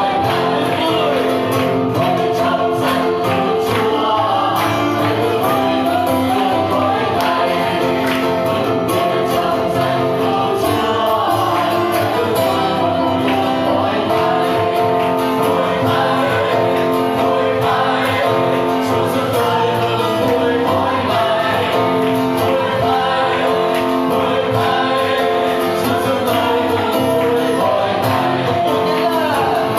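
Congregation singing an upbeat worship song together, led by a man singing into a microphone to his own acoustic guitar, with hands clapping to the beat.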